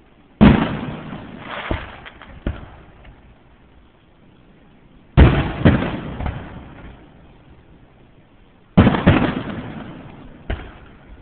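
Fireworks going off: three loud bangs a few seconds apart, each trailing off in a rumble with a few smaller pops after it. The sound is captured on a cell phone, so it lacks its high end.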